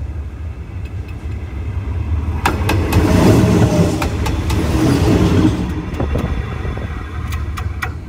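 Hitachi diesel-electric locomotive running light over the track directly above: a low engine and running rumble builds to its loudest from about two and a half to five and a half seconds in as the locomotive passes overhead, then eases off as it moves away. Sharp clicks come through it from the wheels on the rails.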